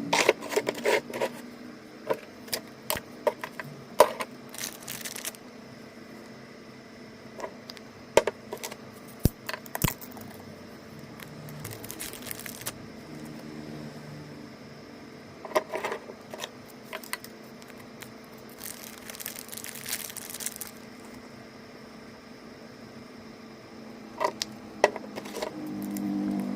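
Small hard plastic toy pieces being handled: scattered clicks, taps and clinks, with a few short bursts of rustling.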